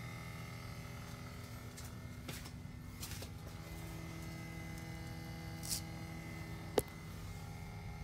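2018 Toyota C-HR's EVAP leak-check pump buzzing steadily with the engine off and the key out. This is the car's normal evaporative-emissions leak test, not a fuel-pump fault. A sharp click comes about seven seconds in.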